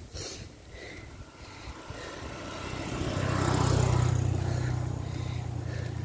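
A motor vehicle passes close by, its noise building to loudest about four seconds in, with a steady low engine hum that lingers as it moves away.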